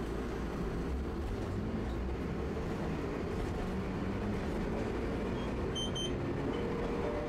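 Tosaden streetcar running, heard from inside the car: a steady low rumble with a faint motor hum. Two short high beeps sound close together about six seconds in.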